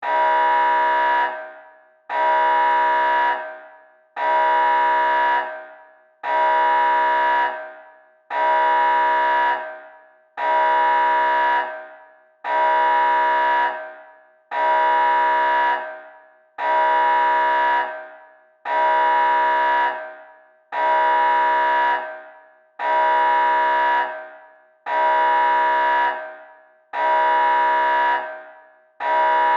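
Nuclear alarm sound effect: a steady, pitched, horn-like alarm blast, about a second long and then fading, repeated evenly about every two seconds, some fifteen times.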